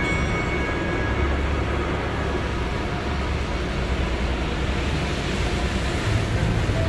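Water spraying over a car in an automatic car wash, heard from inside the cabin: a steady rushing hiss over a low rumble that grows louder near the end.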